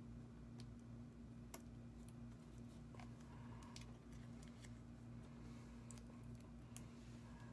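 Near silence with a steady low hum, broken by a few faint, scattered clicks and rustles of hands handling small paper embellishments.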